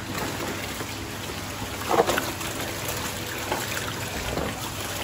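Water splashing and sloshing as a plastic seat shell is dipped and swished in shallow standing water on a floor, with a louder splash about two seconds in.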